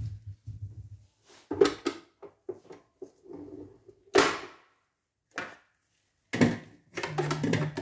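Handling of a stand mixer with a stainless steel bowl: scattered knocks and clicks, a sharp clack about four seconds in as the mixer's tilt head is raised, and denser clattering of the bowl and fittings near the end.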